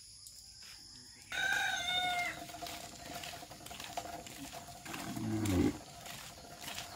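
An ox gives a short low call that falls in pitch about five seconds in; it is the loudest sound. Earlier, from about a second and a half in, a higher bird call rises and falls. Faint steps sound on the dirt path as the yoked oxen walk.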